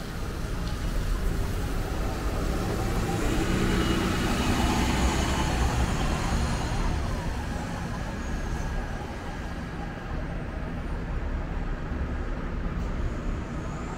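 Viva transit bus pulling away and driving off, its engine and tyre noise loudest a few seconds in and then fading as it moves away across the wet pavement.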